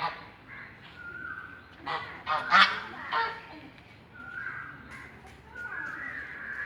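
Mallard ducks quacking: one harsh call at the start, then a quick run of loud quacks about two to three seconds in. Other birds whistle faintly in the background.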